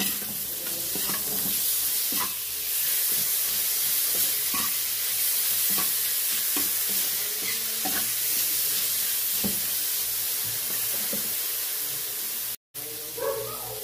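Onion, garlic, ginger, chili and shrimp paste (alamang) sizzling in hot oil in a wok, with a spatula stirring and scraping against the pan in short, irregular strokes. The sound cuts out for a moment near the end.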